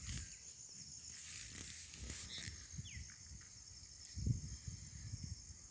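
Faint background noise between narrations: a steady high-pitched hiss, with a few soft low thumps about four seconds in.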